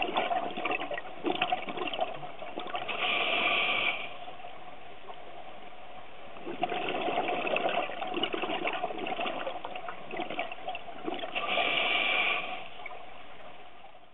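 Scuba diver breathing through a regulator underwater: the hiss of each breath and streams of exhaled bubbles, with two louder bursts of bubbles about three seconds in and again near the end.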